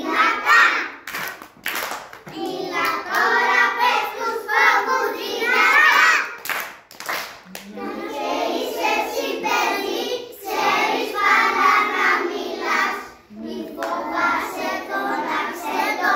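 Young children singing together, with hand claps breaking in a few times.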